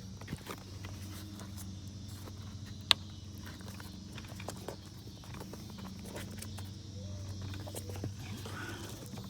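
Clicks and knocks of plastic parts being handled as an air vent hose is refitted under the dash, with one sharp click about three seconds in, over a steady low hum.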